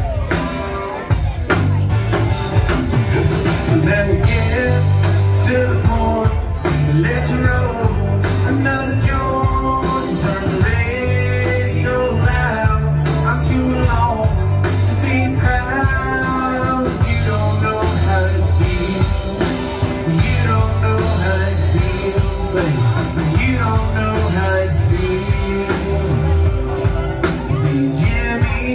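Live rock band playing: a male lead vocal over electric guitars, bass and drums.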